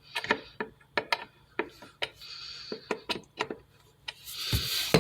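A 15-amp, 120-volt toggle wall switch being flipped back and forth, giving a quick run of sharp, unevenly spaced clicks.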